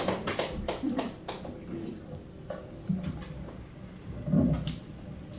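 Audience applause dying away in the first half second, then the hush of a small room with a few scattered knocks and a brief murmur of a voice about four seconds in.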